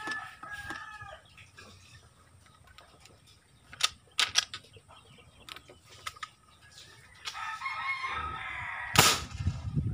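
A rooster crows at the start and again shortly before the end. A few sharp clicks come about four seconds in as the PVC marble toy gun is handled, then near the end the alcohol-fuelled marble gun fires with one loud, sharp bang.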